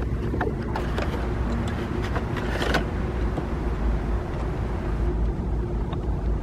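A steady low drone of a running car engine, with a few light clicks and taps, the loudest nearly three seconds in.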